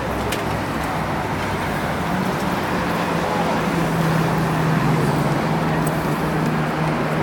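Street traffic noise, steady, with a vehicle engine humming from about two seconds in.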